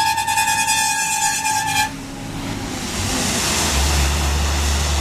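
A vehicle horn holds one steady note and cuts off about two seconds in. Then comes road noise and the low drone of a heavy engine, which swells and grows louder near the end.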